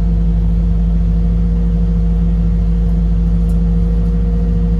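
Excavator's diesel engine running steadily, heard from inside the operator's cab, as the machine lifts a strapped bundle of lumber off a trailer.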